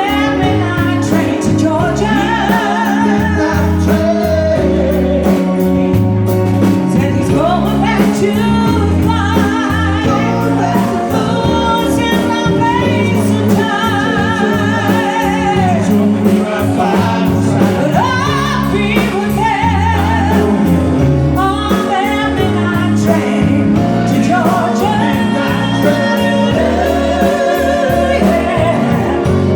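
A song: a singing voice with vibrato over a steady bass and backing accompaniment.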